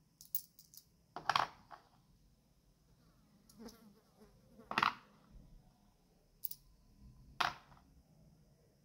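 Small metal coins clicking as they are set down one by one on a hardcover notebook and jostled in a palm: a quick run of light clicks near the start, then single taps every second or two, the loudest about five seconds in.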